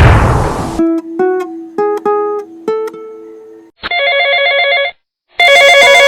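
A loud burst of noise fading out over the first second, then a few single plucked guitar notes, then a telephone ringing twice, each ring about a second long with a fast trill.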